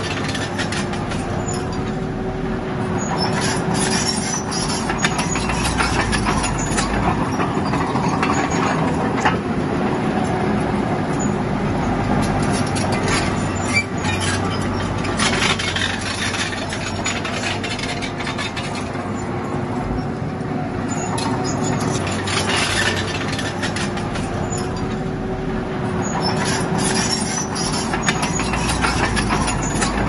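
Bulldozer's diesel engine running steadily under load, swelling and easing every several seconds, with its crawler tracks clanking and rattling over stone.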